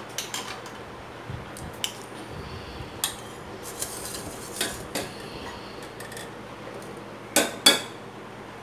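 Metal utensils clinking and tapping against a stainless steel pan, a steel ladle and a mesh strainer, in scattered light clicks, with two louder knocks in quick succession near the end.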